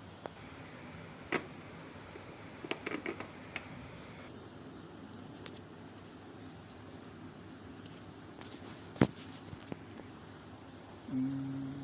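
Scattered light clicks and taps over a steady hiss, with a quick cluster about three seconds in and one sharp, louder click about nine seconds in. A low hum starts near the end.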